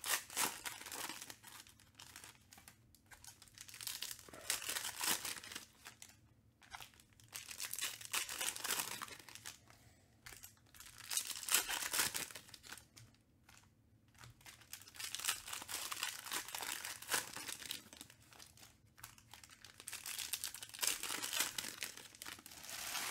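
Trading-card pack wrappers being torn open and crinkled, in repeated bouts of rustling with short pauses between.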